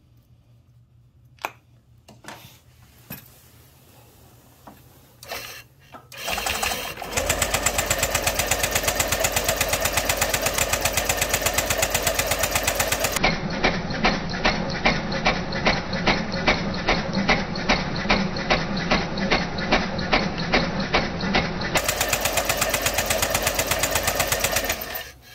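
Honda PCX 125's starter turning the engine over with the spark plug out, held grounded on the ignition coil lead for a spark test. The engine does not fire. The starter runs for about eighteen seconds with a steady pulsing, then cuts off suddenly, and a few light handling clicks come before it.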